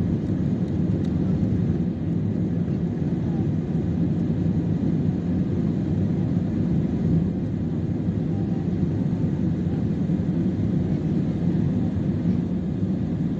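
Steady low drone of a jet airliner in flight, engine noise and rushing air heard from inside the passenger cabin.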